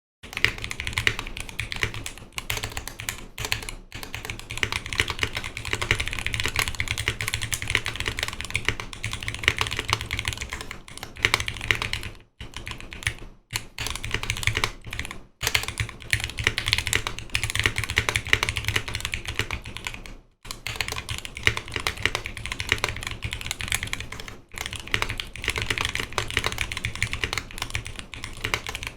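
Fast continuous typing on a custom mechanical keyboard: a Noxary 280 with lubed Zealio 78g V2 tactile switches in a 5 mm polycarbonate plate and GMK keycaps, with brief pauses between bursts of keystrokes.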